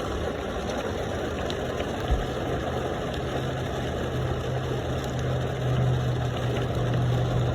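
Long freight train passing, a steady rolling noise with an engine hum that comes in about two seconds in and holds.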